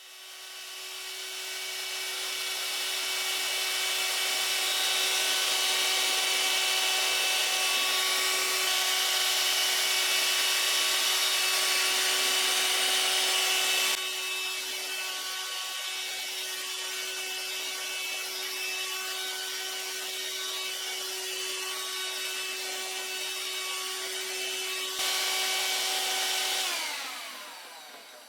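Parkside PHSSA 20-Li C1 cordless hand-held vacuum cleaner's motor spinning up and running with a steady whine and rush of air. The sound drops noticeably about halfway through and rises again near the end, then winds down as the motor stops.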